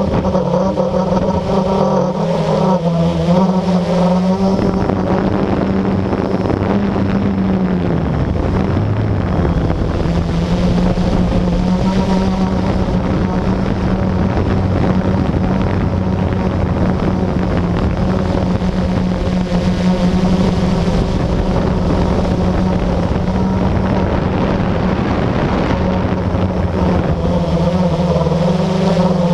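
Blade 350QX quadcopter's four electric motors and propellers humming steadily in flight, heard close up from a camera mounted on the drone. The pitch dips briefly about eight seconds in. A rushing noise partly covers the hum through much of the middle.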